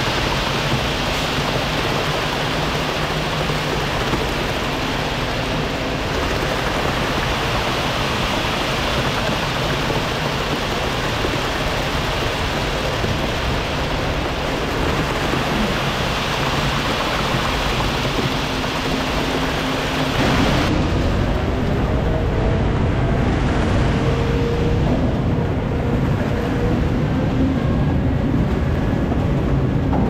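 Concrete mixer truck discharging leftover concrete down its chute: a steady rushing wash of wet concrete sliding out over the running truck. About twenty seconds in the hiss drops away and a deeper engine sound with a slowly rising tone takes over as the truck moves forward, laying the concrete out in a line.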